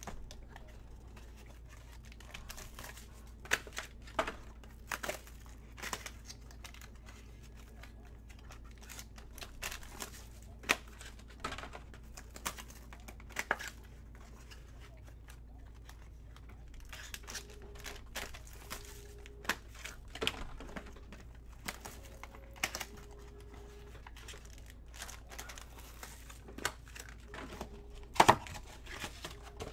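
Plastic wrapping on trading-card boxes crinkling and tearing as it is unwrapped and handled, with scattered clicks and knocks of boxes and cases being set down. The loudest knock comes near the end.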